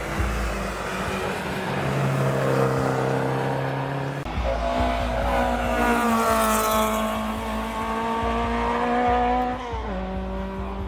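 Race car engines passing one after another. A steady engine note runs for the first four seconds, then a louder car comes through with a note that slowly falls as it goes by and drops suddenly near the end.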